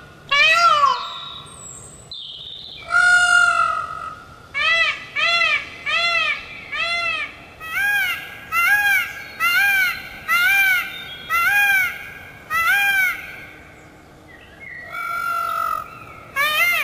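Indian peacock calling: a loud call about half a second in and a longer one about three seconds in, then a run of about a dozen short calls, roughly one and a half a second, each rising and falling in pitch. Near the end comes another long call, then the run of short calls starts again.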